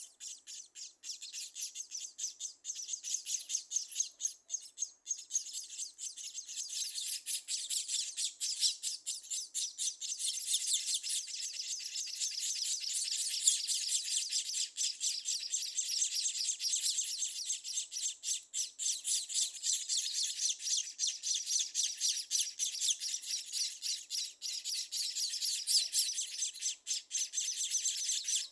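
Scaly-breasted munias chirping: a dense, continuous chatter of short, high-pitched notes that grows busier about six seconds in.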